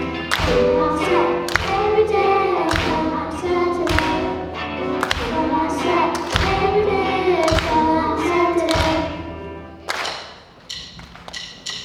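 A girls' rock band playing live: girls singing together over a drum kit, with regular drum hits. Near the end the band drops back to a much quieter stretch.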